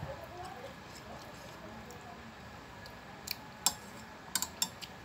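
Chopsticks clicking against a ceramic rice bowl while eating: a handful of sharp, short clicks in the second half.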